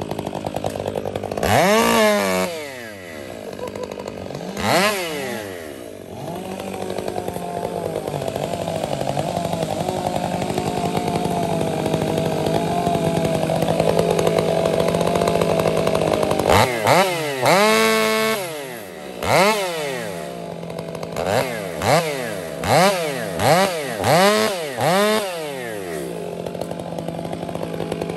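Stihl MS500i fuel-injected two-stroke chainsaw idling and being revved. It blips twice early on, runs steadily for about ten seconds in the middle, then gives a rapid string of about nine short revs before dropping back to idle.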